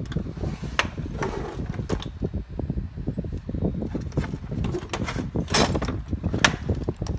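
Metal hand tools clinking and clanking in a steel tool chest drawer as it is handled and slid, with irregular sharp clanks of loose wrenches, the loudest a few near the end.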